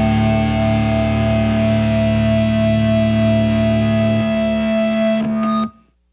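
Heavy metal song with a held, distorted electric guitar chord ringing on. It cuts off suddenly near the end.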